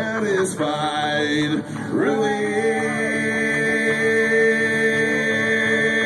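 Live bluegrass band with a male lead singer: a short sung phrase, then about two seconds in the voice starts one long, steady high note held through the rest, over acoustic guitar, banjo and upright bass.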